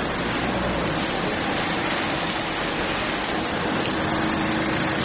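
Heavy rain falling steadily into a puddle, a continuous even hiss of drops splashing on water.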